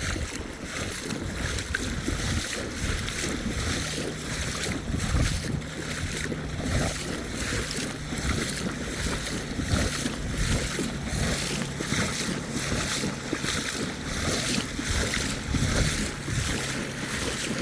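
Swollen floodwater rushing steadily down a flooded creek, with wind buffeting the microphone.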